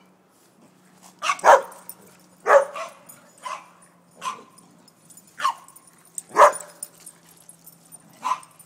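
Dogs play-barking: about eight short, sharp barks at uneven intervals, loudest about a second and a half in and again around six and a half seconds in.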